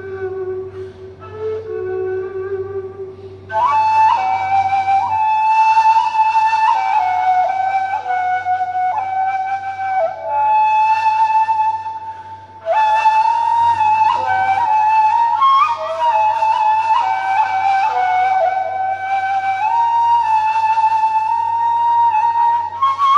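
Turkish ney (end-blown reed flute) playing a melody in makam Acemaşiran. It starts with soft low notes, then about three and a half seconds in climbs to a louder, higher register and moves from note to note there, with a short pause for breath near the middle.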